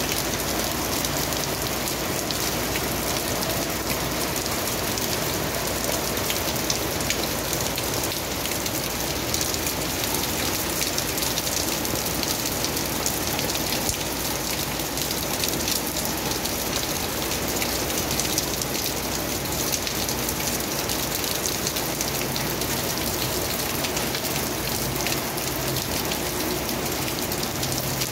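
Heavy rain falling steadily on concrete pavement and a wet road: an even hiss of splashing drops.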